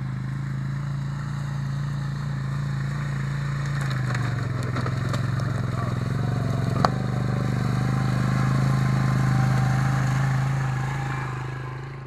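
ATV engine running at a steady low speed, growing louder as the machine drives closer. A single sharp click about seven seconds in.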